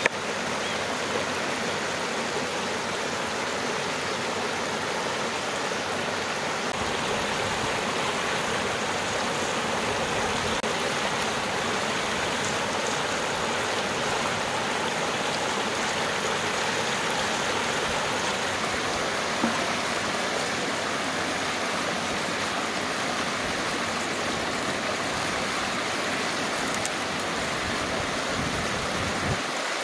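Mountain stream rushing over a small cascade, a steady rush of water with a few faint knocks.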